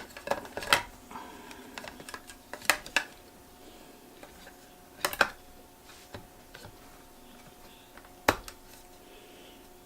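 A handful of small, sharp plastic clicks and taps, spaced a second or more apart, as the drive cable's connector is pushed onto the SSD and the drive is seated in a 2012 MacBook Pro's drive bay.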